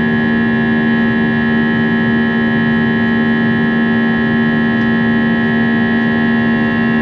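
Steady drone of an airliner's jet engines heard inside the cabin: fixed whining tones over a constant rush of noise, unchanging throughout.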